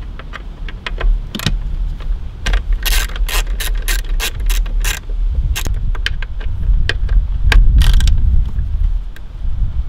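Hand ratchet clicking in irregular runs as it turns out the T40 Torx bolts that hold a BMW M54 DISA valve to the intake manifold, over a low rumble.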